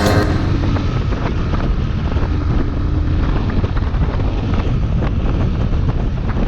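Honda XR250 dirt bike's single-cylinder engine running at riding speed, with steady wind buffeting the microphone.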